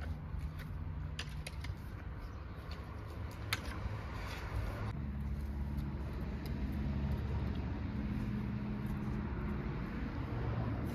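A low, steady motor hum, like an engine running some way off, with light clicks and scrapes of a hand trowel digging into loose soil.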